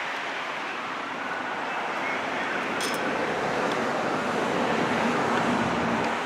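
Steady rushing background noise that grows slightly louder, with a brief faint click about three seconds in.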